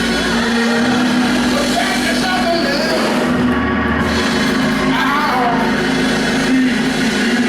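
Live gospel worship music: a band playing steady held chords over a bass line, with a voice singing over it.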